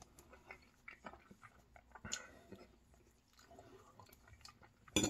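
A person chewing mouthfuls of collard greens and other soft food: faint, scattered short mouth clicks and smacks, with a sharper click near the end.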